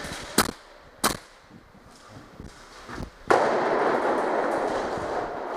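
Two sharp cracks from airsoft guns firing about 0.7 s apart, then a fainter knock. A little after three seconds in, a steady rushing noise starts suddenly.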